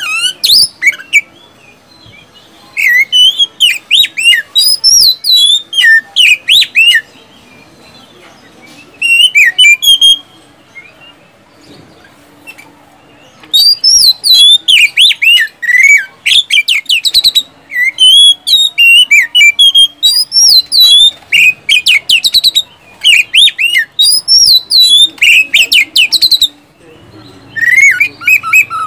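Oriental magpie-robin (kacer) singing loudly in rapid bursts of sharp whistles and chirps, the fast 'tembakan' rattles of its song, with two pauses of a few seconds in the first half and a short break near the end.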